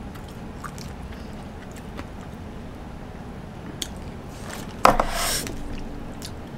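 Hot-pot broth simmering with a steady low bubbling, with light clicks of wooden chopsticks as thin raw pork slices are lifted and lowered into it. A short, loud hiss about five seconds in.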